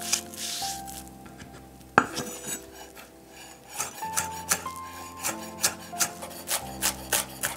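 Chef's knife chopping finely sliced shallot on a wooden chopping board: one sharp knock of the blade about two seconds in, then a run of quick taps that come faster near the end.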